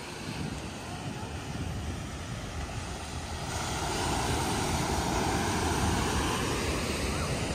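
Wind buffeting the microphone over ocean surf breaking below a cliff. A louder rushing sound swells in about halfway through and eases near the end.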